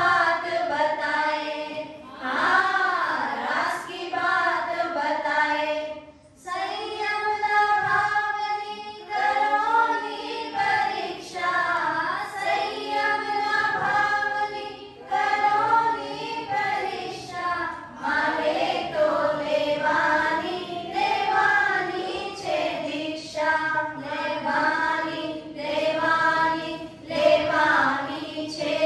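A group of women singing a Hindi devotional song in unison, in sung phrases with short breaks between them and no instruments.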